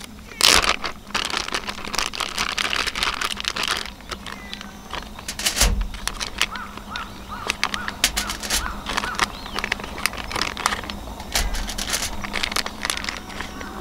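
Plastic zip bag and aluminium foil crinkling and crackling in quick, irregular bursts as marinated spare ribs are taken out of the bag by hand and laid on the foil.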